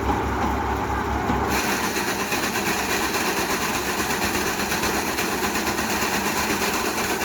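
Tractor-driven maize sheller running steadily: a dense mechanical clatter over an engine hum. About one and a half seconds in, the sound turns brighter and hissier and stays that way.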